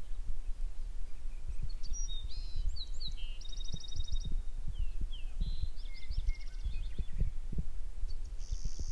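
Songbirds singing over a low, uneven rumble of wind buffeting the microphone. The birds give a few short chirps and a fast trill of repeated notes, busiest from about two to six seconds in.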